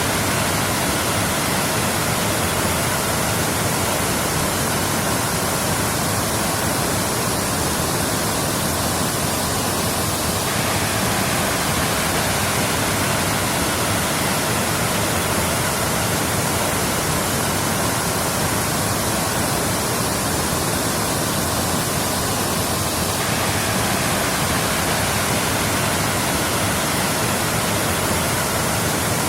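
Waterfall, water falling steadily in an unbroken rush.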